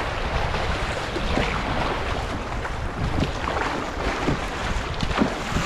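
Fast, flooded river rapids rushing and splashing around a canoe, with the bow paddle's strokes splashing now and then and wind buffeting the microphone.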